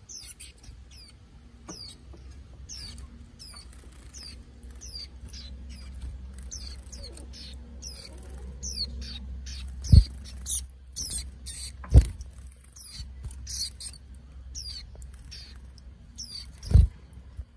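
Young white-eyes calling with many short, high, falling chirps, one or two a second. Three dull thumps are the loudest sounds, about ten seconds in, two seconds later, and near the end.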